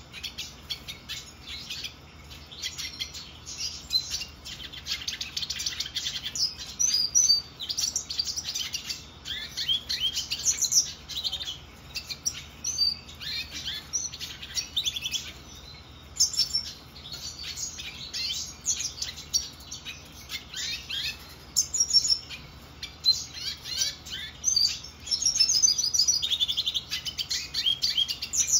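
Male black-headed siskin (Spinus notatus) singing a long twittering song of rapid high chirps and trills, in phrases of several seconds with brief pauses between them.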